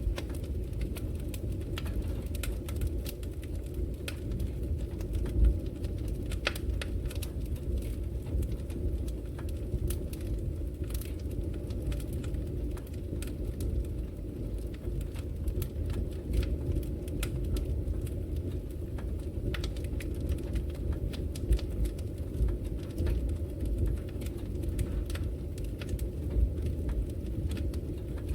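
Wood fire crackling in a fireplace: frequent small sharp pops and snaps over a steady low rumble, with a louder pop about five seconds in.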